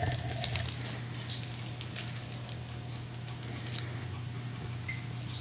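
Scattered light clicks and rustling of makeup brushes handled in their cylindrical holder, over a steady low hum.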